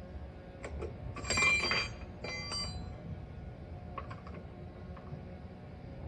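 Metal clanks with a bell-like ring, one just over a second in and a second about a second later, among a few light clicks: tools or lug nuts knocking against metal at a car's wheel during a tire change.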